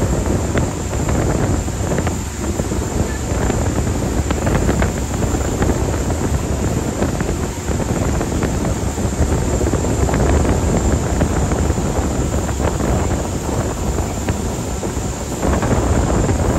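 Wind noise on the microphone over the steady low rumble of a passenger ferry's engines underway, with a thin steady high whine running through it. The noise swells slightly about a second before the end.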